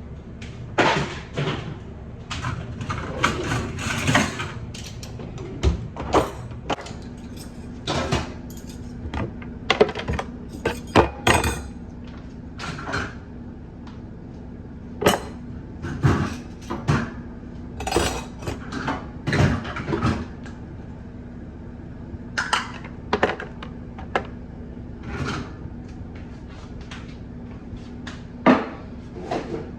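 Kitchen clatter: dishes, cupboard doors and utensils knocking and clinking at irregular intervals, over a steady low hum.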